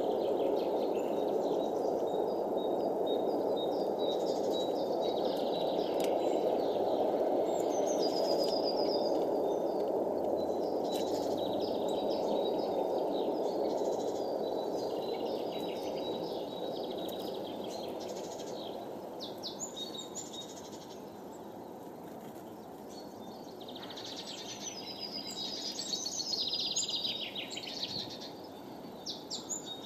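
Small songbirds calling and chirping around woodland seed feeders, in short bursts with a busier spell near the end, over a steady low background noise that eases off about halfway through.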